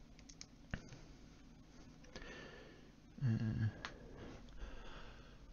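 Faint clicks and taps of small plastic parts being handled, with a breathy exhale and a short low hum from the person a little after three seconds in.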